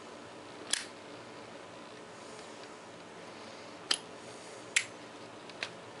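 Zippo lighter being flicked open and shut during a lighting trick: four sharp metallic clicks of the hinged lid and flint wheel, one about a second in and three closer together in the second half.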